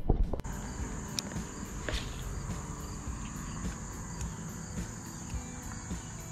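Steady high-pitched chirring of an insect chorus over low outdoor background noise, after a short knock near the start.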